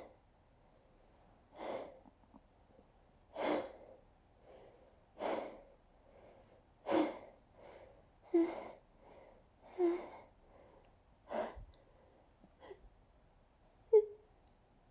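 A person's repeated breathy, partly voiced gasps, about nine of them roughly every one and a half seconds, with a short, sharper and louder one near the end: the build-up breaths before a hay-fever sneeze.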